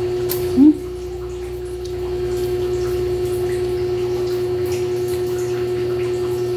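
Steady electric hum of a small clip-on electric fan running, with one brief rising tone about half a second in.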